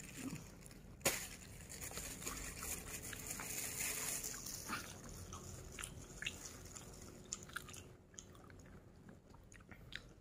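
A person chewing food, with light clicks and crinkles as fingers pick food off an opened paper food wrapping; one sharper click about a second in.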